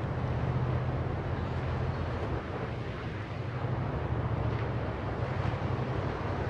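Steady outdoor ambience: a constant low rumble with a rushing hiss above it, no single event standing out.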